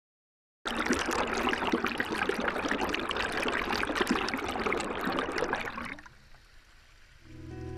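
Fast-flowing stream water rushing close up. It starts abruptly and fades sharply about six seconds in. Music begins near the end.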